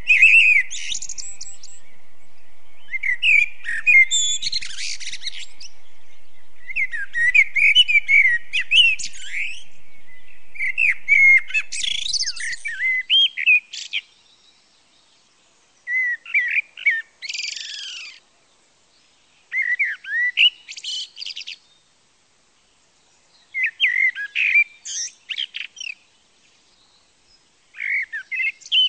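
A songbird singing in short phrases of quick chirps, trills and whistles, one phrase about every four seconds. A steady background noise runs under the first half, and after that the gaps between phrases are silent.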